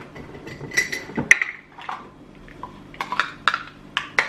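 Kitchenware clinking and knocking as dishes and measuring cups are handled on a bench. The sounds are a run of sharp clinks with a brief ringing tone near the start, the loudest knock about a second in, and a quicker cluster of clicks near the end.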